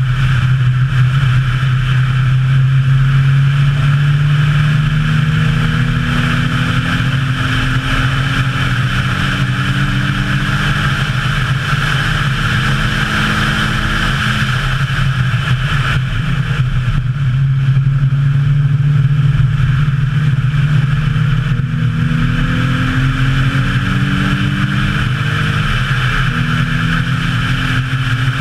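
Nissan 350Z's 3.5-litre V6 engine running hard on a race track, its pitch climbing slowly under acceleration, dropping back and climbing again several times, over a steady rush of wind and tyre noise.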